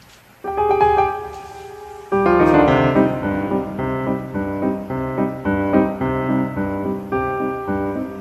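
Background piano music: a held chord about half a second in, then a fuller passage of piano chords from about two seconds in.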